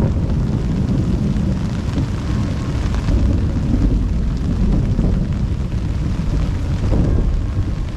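Heavy rain, heard as a loud, steady low rumble with a fainter hiss above it, buffeting the camera's microphone.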